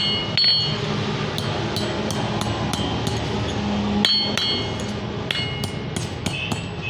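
Hammer striking metal over and over, roughly two blows a second at an uneven pace, each blow leaving a short metallic ring.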